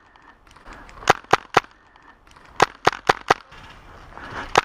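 HPA-powered Tippmann M4 airsoft rifle firing close to the microphone, in sharp shots in quick strings: three shots about a second in, four more around the middle, and another near the end.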